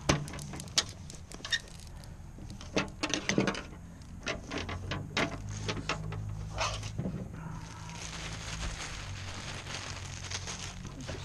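Hands handling gear and plastic packaging on a table: scattered sharp clicks and rustles, most of them in the first seven seconds, with a wood fire crackling close by.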